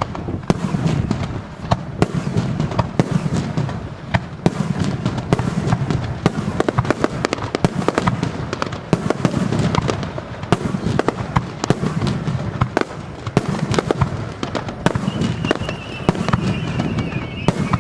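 Starmine fireworks barrage: a dense stream of launches and shell bursts, sharp bangs and crackling over pulsing, rolling booms. About fifteen seconds in, a high tone starts and glides slowly downward.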